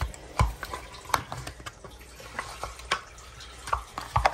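Plastic snap-on lid of a Tajín seasoning tub being handled and pried open: a few irregular sharp clicks and taps.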